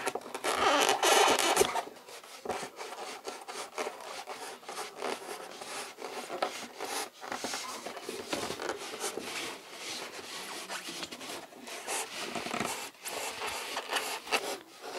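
A hand-held blade cutting through the wall of an expanded polystyrene (thermocol) box, a rough scraping rasp in many quick short strokes. It is loudest for the first couple of seconds, then carries on more softly.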